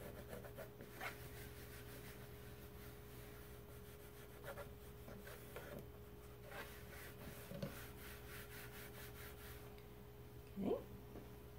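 Faint rubbing of a damp wipe across a chalkboard surface, in short irregular strokes, wiping off water-soluble chalk paste. A steady low hum runs underneath.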